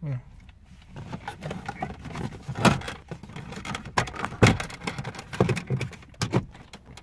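Plastic dashboard trim tool prying at a dashboard AC vent: a run of small plastic clicks and scrapes as it works into the gap, with three louder knocks.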